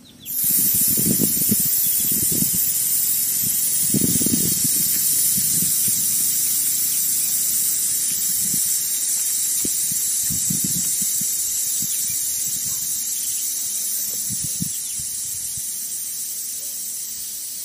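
Air hissing out of a mountain bike's front tyre valve as the tyre is let down to empty. The hiss starts suddenly and slowly fades as the pressure drops.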